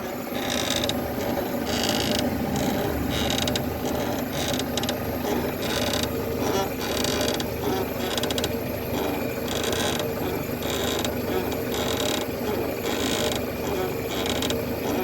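Repeated mechanical clicking and creaking from the front suspension stabilizer link of a Peugeot 307, whose rubber bushing has dried out and burst, over a steady background hum.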